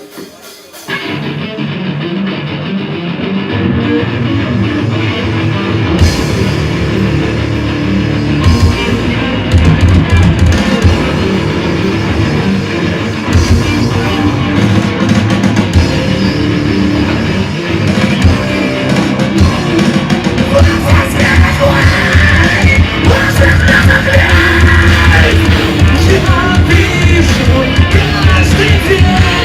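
Live emo/metalcore band playing a song, heard loud through the club's PA. The guitars start about a second in, the full drums and distorted guitars come in around six seconds, and from there the band plays at full volume.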